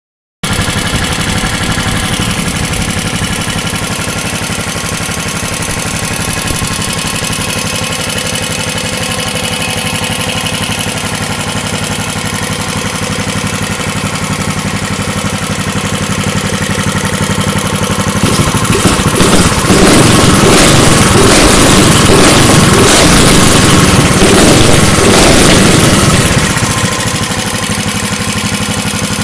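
460cc 25 hp air-cooled kart engine on its first run, idling steadily. A little past halfway it is revved up and held high for about eight seconds, then it drops back to idle.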